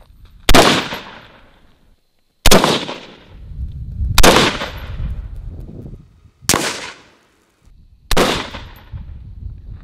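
Five single rifle shots from an AR-style carbine, fired one at a time about two seconds apart in slow aimed fire at a target, each cracking sharply and trailing off briefly.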